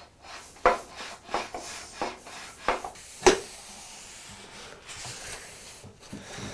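Parts of a foot-powered mortiser being fitted back together: five sharp knocks and clunks about every half to two-thirds of a second, the loudest a little past three seconds in, followed by a softer rubbing and scraping.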